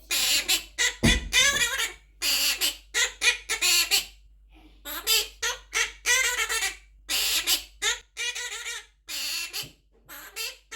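Quaker parrot (monk parakeet) talking: a rapid string of short, speech-like phrases mimicking human speech, with brief pauses between them.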